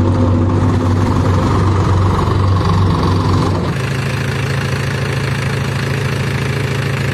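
Diesel farm tractor engine running steadily while it pulls a trolley loaded with earth. About three and a half seconds in, this gives way to a tractor engine idling, a little quieter and very even.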